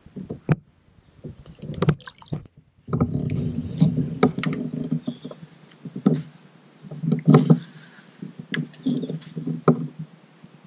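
Irregular knocks and clunks on a plastic fishing kayak's hull, with some water splashing as a small bass is let go over the side and a few sharp clicks from handling tackle.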